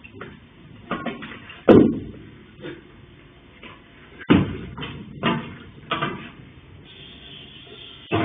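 Irregular knocks and bangs, the loudest about two seconds in and again just past four seconds, with lighter knocks between.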